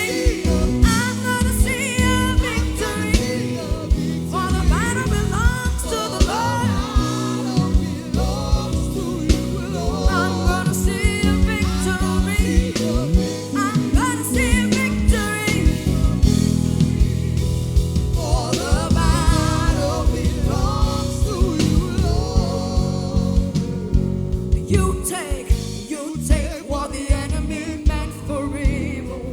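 Gospel worship band playing, with a drum kit and sustained bass and keyboard chords under a singing voice that glides up and down in runs.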